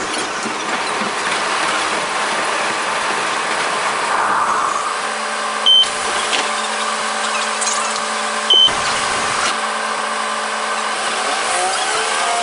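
Sped-up sound of a KiHa 47 diesel railcar: running noise that settles into a steady engine hum as it stands at a station. Two short high beeps come midway, and near the end the engine note begins to rise as it revs up.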